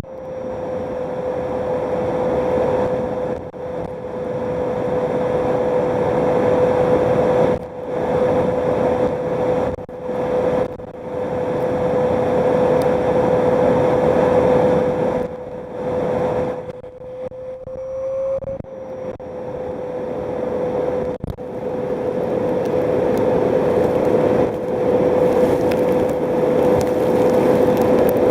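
Numatic James tub vacuum cleaner running, its motor a steady hum over the rush of air through the hose as it sucks up dirt. The rushing noise drops out briefly several times, and once, about two-thirds of the way through, the motor pitch rises slightly for a moment.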